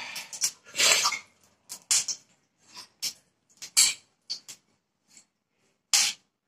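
Ghee melting in a preheated nonstick frying pan, giving a run of short, separate crackles and spits with quiet gaps between them.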